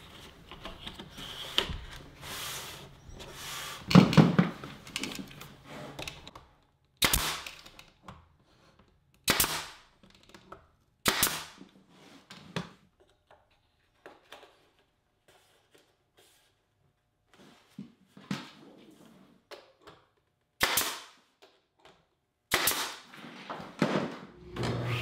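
Pneumatic brad nailer firing into thin wooden molding trim, a sharp shot every few seconds, about seven in all, with quiet handling between.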